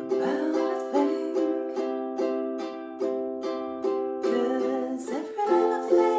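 Ukulele strummed in a steady rhythm of about two strums a second, played by a beginner, with a woman's voice singing along over the chords in places.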